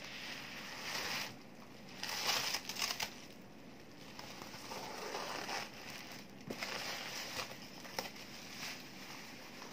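Clear plastic film and bubble wrap crinkling in bursts as a shrink-wrapped cardboard box is handled and turned over, loudest about two seconds in, with a couple of short sharp clicks later on.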